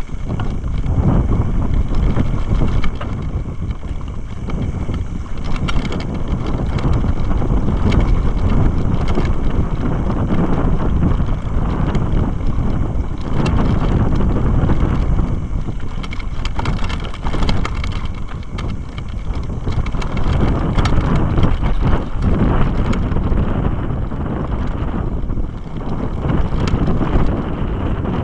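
Mountain bike descending a rough dirt trail: wind buffeting a bike-mounted camera's microphone, with a constant rattle and knocking of the bike and camera bouncing over bumps and rocks.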